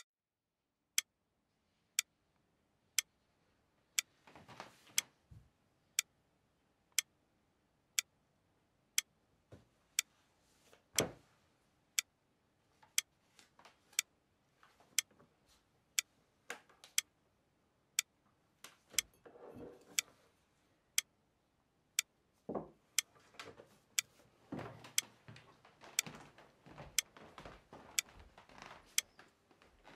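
A clock ticking, a sharp tick about once a second, with soft rustling and handling noises in between that get busier near the end.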